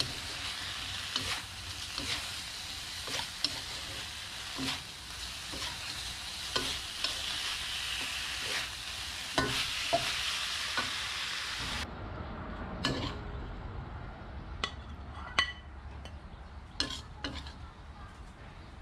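A stir-fry of minced meat and century eggs sizzling in a metal wok while a metal spatula scrapes and taps the pan. About twelve seconds in, the sizzle stops, leaving sparser spatula scrapes and knocks against the wok.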